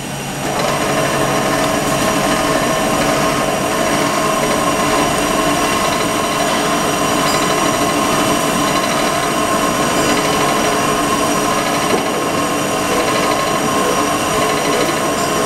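Pin grinding machine running steadily: a continuous mechanical hum with several steady whining tones, swelling to full level about half a second in, with one faint click about three-quarters of the way through.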